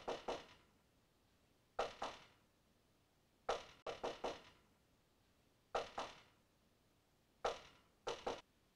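Knocking on a door, in five quick groups of two to four raps, about one group every two seconds.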